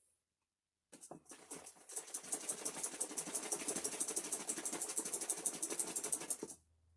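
A bottle of water and hair conditioner being shaken hard and fast, the liquid sloshing in quick, even strokes to mix it. The shaking starts about a second in, grows louder, and stops shortly before the end.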